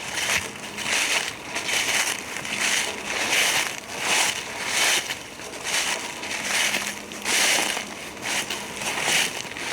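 Footsteps crunching through dry fallen leaves at a steady walking pace, a little over one step a second.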